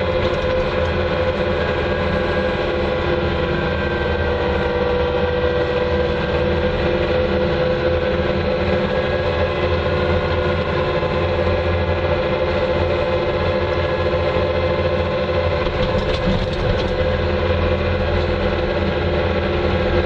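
Bobcat 2410 loader's engine running steadily at road speed, heard from the operator's seat: a constant drone with a strong steady tone in it. A few faint clicks come about sixteen seconds in.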